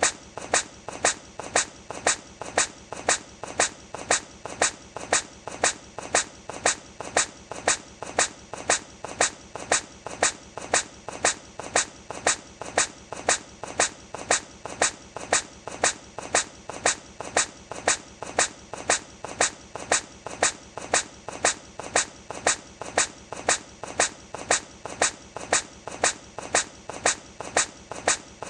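A hedgehog sneezing over and over: short, sharp sneezes at an even pace of about two a second, with fainter sounds between them. It is the same short clip looped.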